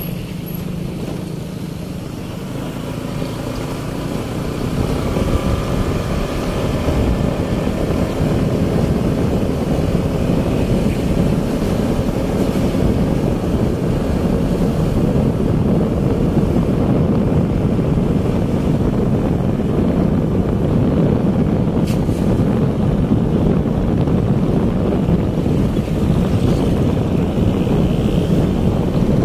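Wind buffeting the microphone of a moving motorcycle, with the motorcycle's engine running underneath; the rush gets louder about five seconds in as the bike picks up speed.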